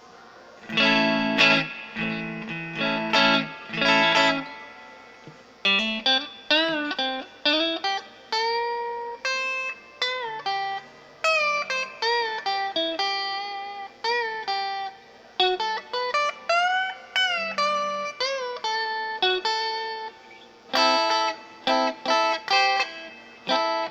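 Stratocaster-style electric guitar with Wilkinson Vintage Voice Alnico V single-coil pickups, switched to the fourth position (middle and neck pickups together), played through an amp. Strummed chords open it, then come single-note lines with string bends, and chords again near the end.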